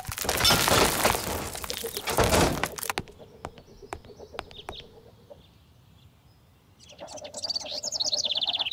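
Cartoon sound effect of a stone monument collapsing: a loud crash of breaking, tumbling rubble in two surges over about three seconds, then scattered small knocks of debris settling. Near the end comes a high, rapidly warbling chirp.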